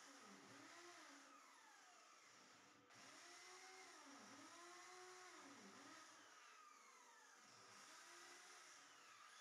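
Faint whine of a corded electric drill boring into a wall, its motor pitch sagging and climbing back several times as the bit bites.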